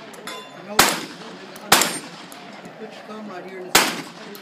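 Three gunshots from a competition shooter firing at range targets, the first about a second in, the next just under a second later, the last about two seconds after that, each with a short echo off the range berms.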